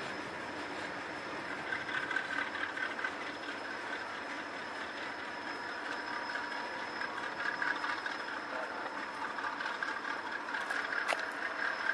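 Freight train's loaded gondolas and boxcars rolling past: a steady noise of steel wheels on rail and rattling cars, swelling louder a couple of times.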